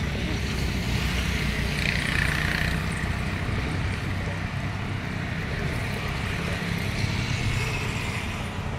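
Steady road traffic noise from vehicles on the road alongside, a low rumble with a passing-vehicle hiss swelling about two seconds in and again near the end.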